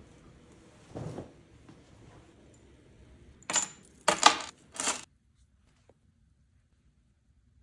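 Handling noise: a soft thump about a second in, then three short, bright clattering rattles of small hard objects in quick succession.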